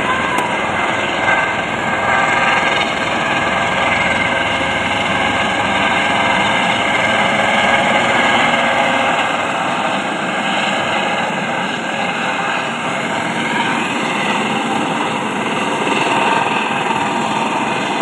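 Light helicopter's engine and rotor running loud and steady as it comes down onto the helipad and sits with the rotor still turning.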